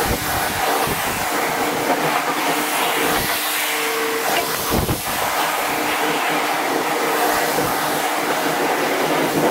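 Pressure-washer wand spraying a high-pressure jet of water onto a truck's metal flatbed deck: a steady hiss of spray, with a faint steady hum underneath.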